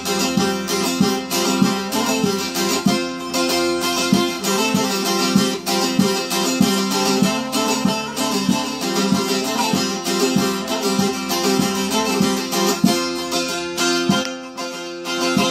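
Solo bağlama (Turkish long-necked saz) played instrumentally: a quick run of rapidly picked notes over steady ringing lower tones.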